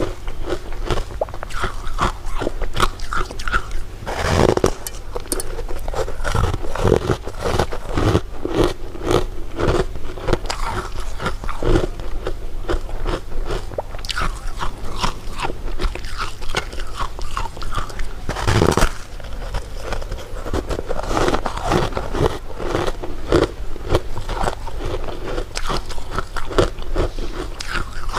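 Close-miked eating: a person biting and chewing something crunchy, a steady run of crisp crunches with two louder bites about four and nineteen seconds in.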